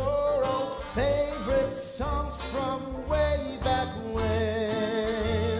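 A show-tune duet: singers holding and sliding between notes with vibrato, over a small live band.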